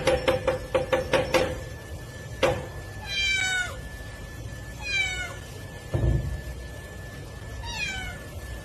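A rapid run of knocks, about five a second, for the first second and a half, then a single knock. After that a cat meows three times, each meow falling in pitch.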